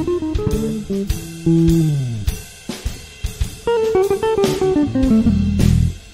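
Jazz guitar improvisation over electric bass and drums. A low note slides down about one and a half seconds in, and a quick descending run of guitar notes comes near the end.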